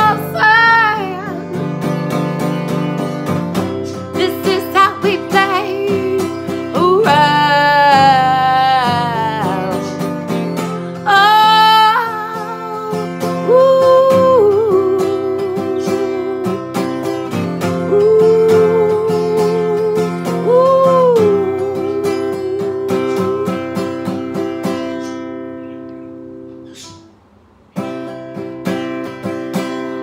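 A woman singing a slow song over acoustic guitar accompaniment, holding long notes with vibrato. The music fades out about 25 seconds in, almost stops, then starts again just before the end.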